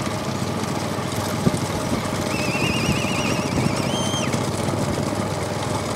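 Steady rumble of motorcycle engines and road noise. About two seconds in, a high warbling whistle trills for about two seconds and ends on a short held note.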